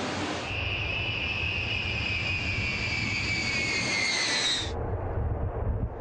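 Jet aircraft engines whining in several high tones that fall slowly in pitch, over a low rumble; the whine cuts off abruptly near the end. The sound opens with about half a second of rushing hiss.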